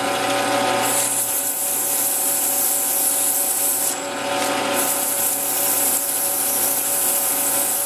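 Metal lathe running with a steady multi-toned whine while a strip of abrasive cloth is pressed against the rim of a spinning model steam engine flywheel, giving a steady hiss of abrasive rubbing. The hiss drops away briefly about four seconds in, then resumes.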